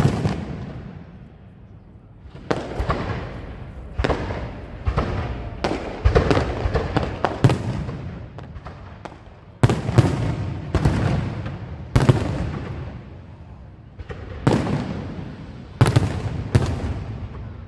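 A long series of loud bangs, about fifteen at irregular intervals and sometimes two in quick succession, each dying away over a second or more in a long echoing tail.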